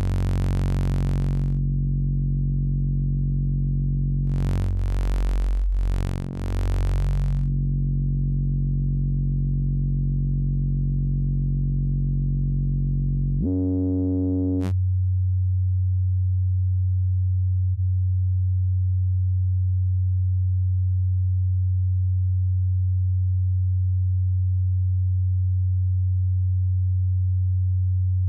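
One held low note from the Zebra 2 software synthesizer, its timbre changing as the oscillator's waveform is reshaped. It turns bright and buzzy twice in the first several seconds, shifts again about halfway through, then settles into a pure, steady sine tone.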